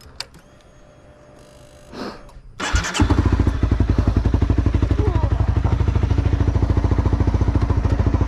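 Honda CBR250R single-cylinder motorcycle engine starting up about three seconds in, then settling into a steady idle of rapid, even pulses.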